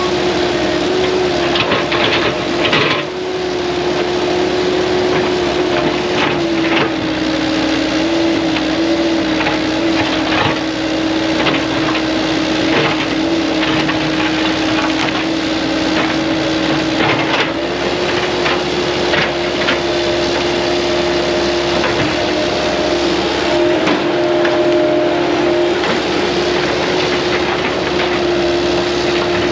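Forestry mulcher running at full speed and grinding brush and wood, a steady high whine with a hiss of shredding and frequent cracks and snaps of breaking wood.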